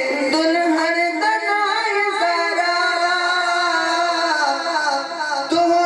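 A man's voice singing a devotional naat solo through a microphone and loudspeakers, with long, wavering held notes that glide between pitches.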